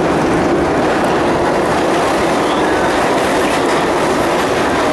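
Vintage R33WF subway car running at speed on an elevated line, heard from on board: a loud, steady rumble of steel wheels on rail, with a few faint wheel squeaks.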